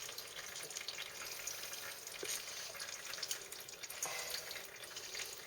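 Old engine oil dribbling and trickling out of the open drain hole of a Honda CRF450R's engine, a steady faint splatter with small ticks of drops.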